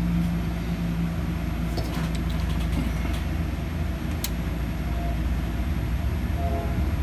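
Desktop PC running on an open bench: steady whir of its cooling fans with a low hum, and one sharp click about four seconds in.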